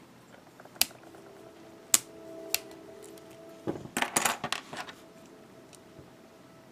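Small hard plastic model-kit parts clicking in the hands as they are handled and pressed together. Three sharp single clicks come in the first few seconds, then a quick run of clicks and rattles about four seconds in.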